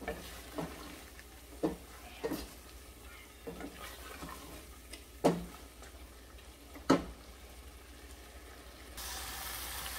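Wooden spoon stirring chicken and chickpea curry in a stainless steel pot as it is fried down: scattered knocks and scrapes against the pot over a faint sizzle, the loudest two about five and seven seconds in. A louder, steady sizzle comes in near the end.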